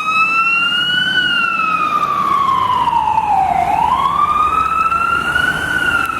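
Emergency vehicle siren in a slow wail. Its pitch sweeps up and down in long glides, rising for about two seconds and falling for about two and a half.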